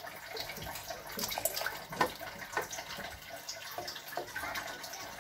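Wooden spoon stirring a thick minced-meat and carrot sauce in a stainless steel pot: wet sloshing of the sauce with irregular light clicks as the spoon meets the pot.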